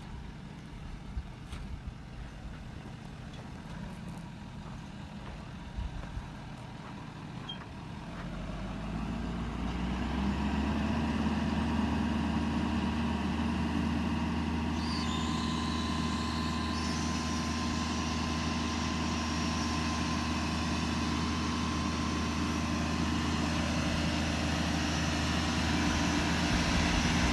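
Ford F-550 Power Stroke V8 turbodiesel running steadily at idle. It is faint at first, with a few light knocks, then grows louder about eight to ten seconds in and holds an even drone.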